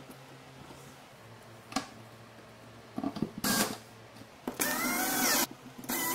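Cordless drill-driver driving a screw through a round plastic base into the cabinet floor, in short trigger bursts: a brief blip about three seconds in, then two steady runs of about a second each, the motor's pitch wavering under load. A single light knock comes about two seconds in.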